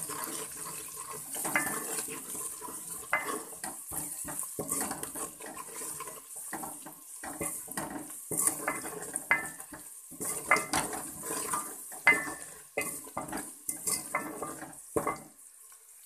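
A ladle stirring masala frying in oil in an aluminium pot, scraping and knocking against the pot's sides in quick, irregular strokes with a short metallic ring. The frying hisses underneath. The stirring stops shortly before the end.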